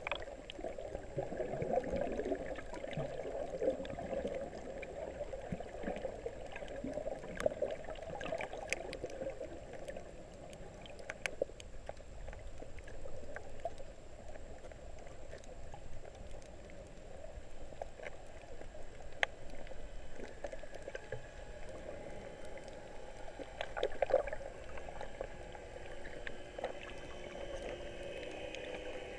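Muffled underwater sound of water moving and gurgling around a camera held beneath the surface, with scattered sharp clicks throughout. Near the end a faint steady hum joins in.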